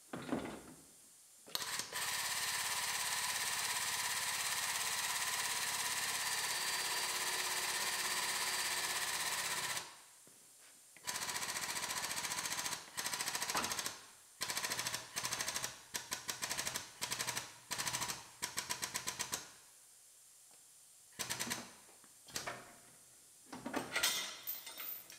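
Pneumatic sheet-metal cutter, a 'pneumatic can opener', hammering rapidly as it cuts through the steel of the outer rear quarter panel. It runs in one long stretch of about eight seconds, then in a string of short bursts with pauses between them.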